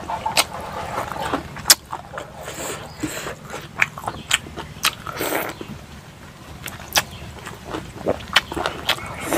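A man eating rice and pork with his hand, chewing with wet mouth sounds and lip smacks: a run of short, sharp clicks at irregular intervals, with a louder, noisier smack about five seconds in.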